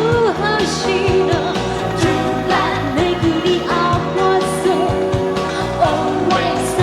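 1980s Japanese city pop song played back from cassette tape: a female singer's voice over a pop band with a steady drum beat.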